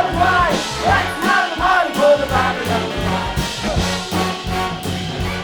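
Music with a steady, repeating low beat under arching melodic lines.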